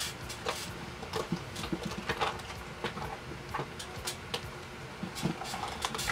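Light clicks and knocks of plastic makeup compacts and cases being handled and sorted, scattered irregularly throughout.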